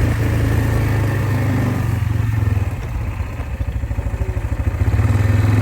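Engine of a farm vehicle running steadily, easing off to low revs about halfway through with its separate firing pulses showing, then picking up again near the end.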